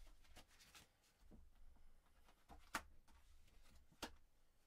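Quiet handling of a deck of oracle cards: faint rustling as cards are drawn and laid on a cloth-covered table, with two light taps, one about three seconds in and one near the end.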